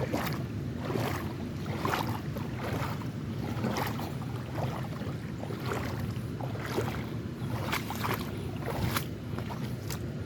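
Creek water sloshing and splashing around someone wading in it, with scattered small splashes and clicks over a steady low rush.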